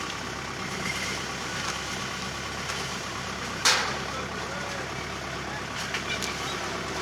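Steady running of a sweet corn harvester's small engine, geared low and working through the field, with one short, loud burst of noise about halfway through.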